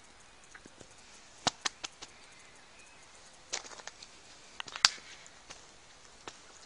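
Footsteps crunching on a gravel track, in a few irregular clusters of sharp crunches with quiet between them; the sharpest crunch comes a little past the middle.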